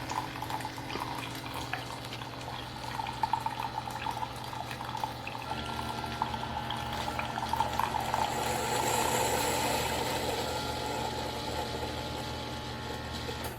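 Keurig K-Mini single-serve coffee maker brewing: its pump hums steadily while liquid streams into the cup. The hum changes pitch about halfway through, and a hiss joins it a little later.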